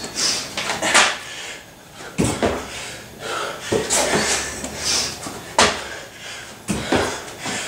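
A man doing burpees on a gym floor: repeated thuds as his body drops to the floor and his feet land after each jump, about five knocks a second or two apart.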